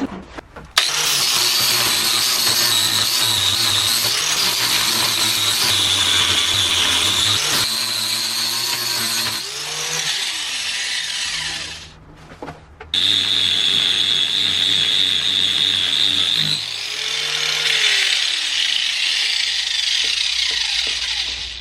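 Power grinder grinding down fresh welds on a steel body panel, its high whine dipping as it bears on the metal. It runs for about eleven seconds, stops briefly, then starts again and grinds for another eight seconds.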